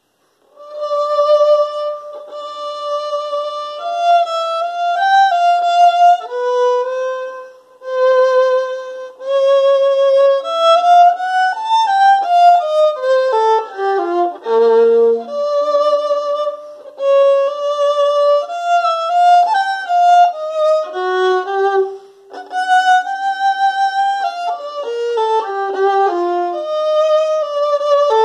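Solo violin playing a technical exercise of held notes with vibrato, at times with two strings sounding together. A falling run of notes comes near the middle, and the playing breaks off briefly about seven and a half and twenty-two seconds in.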